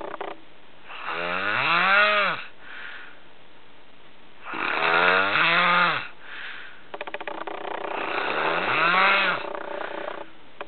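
Snoring in slow, regular breaths: three long snores, each rising then falling in pitch, with a rattly flutter between them.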